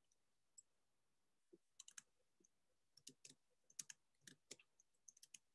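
Faint, irregular clicking of a computer keyboard and mouse in small clusters, as values are pasted into spreadsheet cells.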